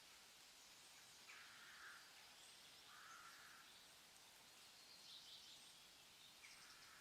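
Faint forest ambience: a few short, distant bird calls over a steady soft hiss.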